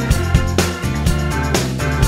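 Background music with a steady drum beat over bass and keyboard chords.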